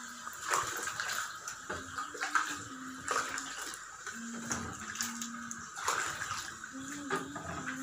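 Firewood crackling in a wood-fired stove, with sharp pops over a steady hiss, heating a pot of water.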